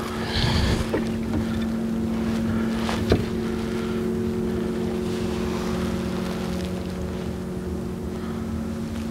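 A boat motor runs with a steady hum of several unchanging tones. A couple of light clicks sound, the sharpest about three seconds in.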